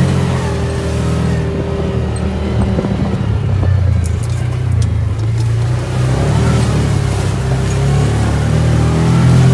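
Side-by-side UTV engine running while driving, its note sagging and turning rougher from about a second and a half in and picking up again around six seconds. A few short knocks or rattles sound around four to five seconds in.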